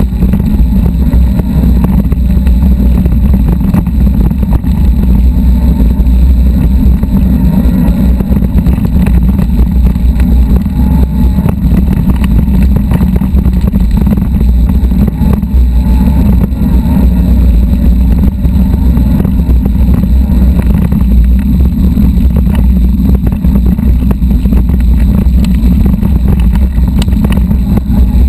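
A mountain bike rolling over a rough dirt trail, heard through a bike-mounted camera: a steady low rumble of wind buffeting the microphone, with a constant scatter of small rattles and ticks from the bike and the gravel.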